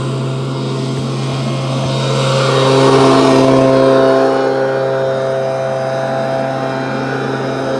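A motor drones steadily, one low hum with higher tones above it, and swells louder for a couple of seconds in the middle. Faint thuds of a basketball bouncing on asphalt sound early on.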